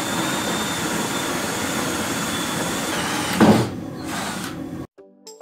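Cordless drill running steadily into the wooden frame with a thin motor whine. It stops about three seconds in with a sharp knock, the loudest sound, and background music with struck notes starts near the end.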